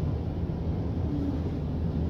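Steady low rumble of a 1995 KONE inclined traction elevator running, heard from inside the cab.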